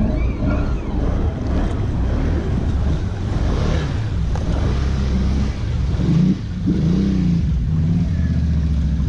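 ATV engine running, with the throttle opened and eased off a couple of times near the end, the pitch rising and falling.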